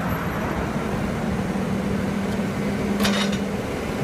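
CAT P5000 forklift's engine running steadily while the hydraulics lift the mast and forks. A brief hiss sounds about three seconds in.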